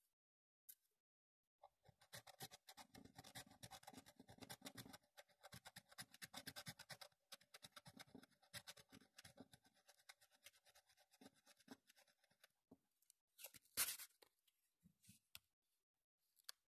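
A coin scraping the latex coating off a scratch-off lottery ticket: faint, quick back-and-forth strokes for about ten seconds, then a few separate scrapes near the end.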